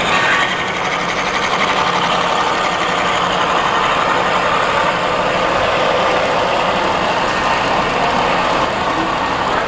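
Large-scale model freight train running along its track, a steady mechanical running rumble from the locomotive and the rolling cars.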